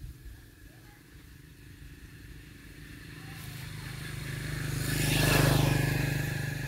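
A motorbike passes by: its engine sound swells to a peak about five seconds in and then fades away.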